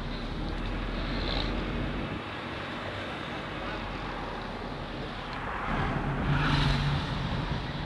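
Engine of a 2008 Honda Civic LXS automatic (1.8-litre four-cylinder) running with a steady hum, getting louder about six seconds in as it is accelerated; the owner hears a strange noise on acceleration whose cause he does not know.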